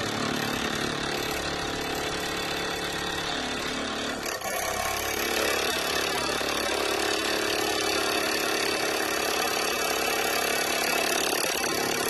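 Graphics card cooling fan with broken and clipped-off blades, run off a 9-volt battery, spinning steadily with a motor hum; it is still out of balance, though its shaking is no longer violent. There is a brief dip about four seconds in, after which it runs a little louder.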